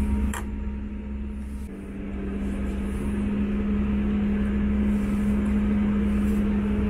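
Class 159 diesel multiple unit's underfloor Cummins diesel engine idling with the train standing at the platform, heard from inside the carriage as a steady hum over a low drone. There is a brief click just after the start, and the level dips for about a second before steadying.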